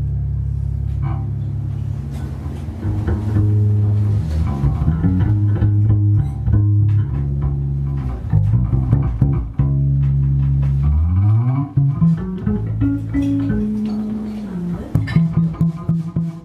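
Instrumental music led by a plucked bass line, with sustained low notes that shift every second or so and a sliding bass run about two-thirds of the way through, over guitar.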